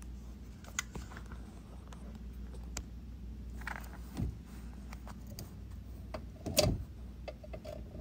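Small clicks and rustles of fingers handling wires and plastic wire nuts in a dishwasher's power junction box, over a low steady hum, with a louder knock about six and a half seconds in.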